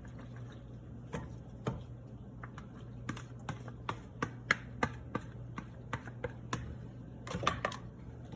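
Cooked macaroni being added to a bowl of salad dressing with a utensil: light, irregular clicks and taps, over a low steady hum.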